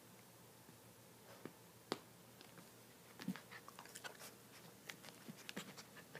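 Pomeranian puppy chewing on a rope-tied toy football close to the microphone: scattered small clicks and crunches of teeth on the toy, beginning about a second in and coming more often in the second half.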